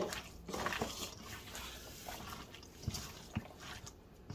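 Faint wet handling of raw, seasoned alligator gar: hands mixing and rubbing seasoning into the pieces of fish, with scattered small clicks and two light knocks about three seconds in.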